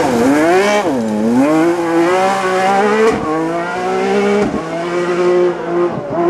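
Rally car engine at high revs. Its note dips and rises twice, then climbs through the gears with two quick gear changes, about 3 and 4.5 seconds in, before holding a steady note.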